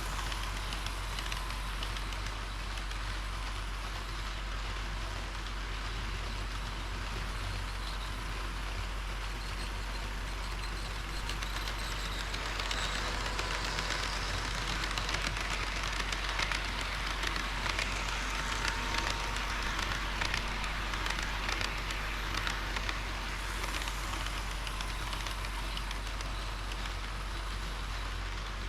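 HO-scale model train running on the layout's track: a steady rattle of small wheels on rail with many fine clicks, growing louder in the middle and easing toward the end. A steady low hum lies underneath.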